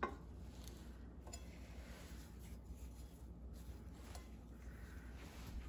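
Faint rubbing and rustling of a paper towel as a plastic-straw salinometer is wiped dry, after a light click at the very start as the straw is lifted from its glass cylinder.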